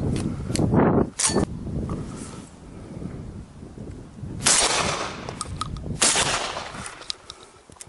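Two shotgun shots about a second and a half apart. Before them come a second or so of rustling and knocks.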